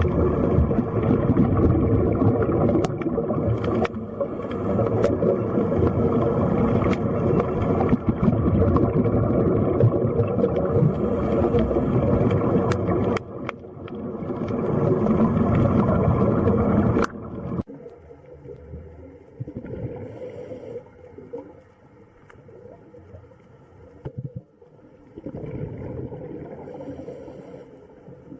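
Running water, a dense steady wash with scattered small splashes, that drops suddenly to a quieter, patchier trickle about 17 seconds in.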